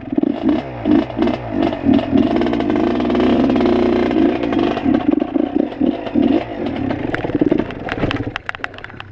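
Dirt bike engine revving in short bursts, on and off the throttle, heard from on the bike while it rides a rough trail. Near the end the revs drop away, and sharp clattering knocks and ticks follow.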